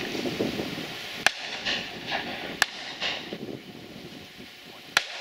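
Three single shotgun shots spread over about four seconds, the last the loudest, over a faint background hiss.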